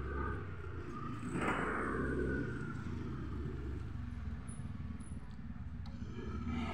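Street traffic: a motor vehicle passing, loudest about a second and a half in, over a steady low rumble.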